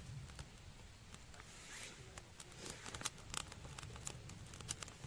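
Small wood fire in a BushBox LF folding pocket stove crackling with irregular sharp pops, some louder snaps after about three seconds, and a short rising hiss a little under two seconds in.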